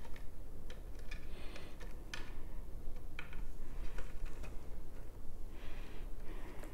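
Scattered light clicks and brief soft rustles of plant stems and foliage being handled and repositioned in a flower arrangement.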